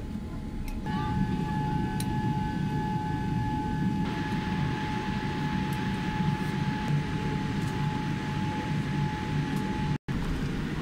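Cabin noise of a Boeing 787 taxiing: a steady low rumble with a steady engine whine over it, growing a little louder about a second in. The sound drops out for an instant near the end.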